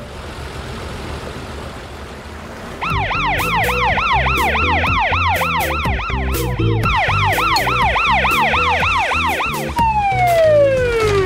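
Cartoon police-car siren yelping in quick rising-and-falling sweeps, about three or four a second, with a low beat underneath. About ten seconds in it gives way to one long falling whistle.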